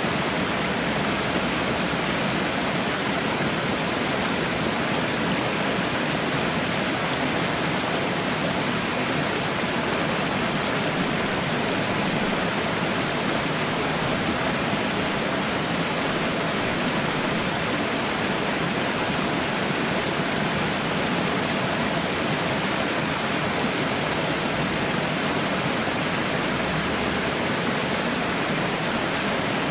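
Waterfall pouring: a steady, even rush of water with no change throughout.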